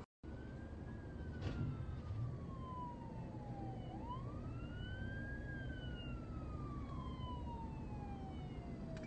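Police siren on a slow wail: the pitch sinks slowly, sweeps back up about four seconds in, then sinks again. It is heard from inside a car over a steady low rumble, and the sound cuts out for a moment at the very start.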